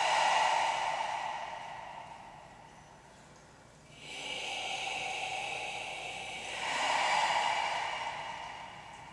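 A breathy hissing sound that swells and fades twice: it dies away over the first three seconds, then rises again about four seconds in and fades near the end.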